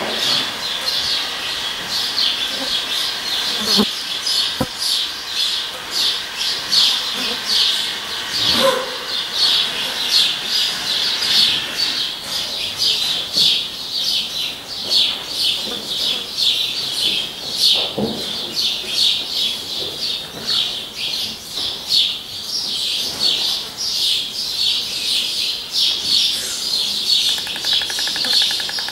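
A steady chatter of high bird chirps, several a second. Near the end a white stork throws its head back and starts clattering its bill, a fast even rattle.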